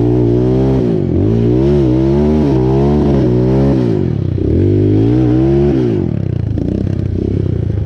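Motorcycle engine accelerating hard at full throttle. Its pitch climbs and drops sharply twice, about four and six seconds in, like gear changes, then it settles into steadier running at a lower pitch.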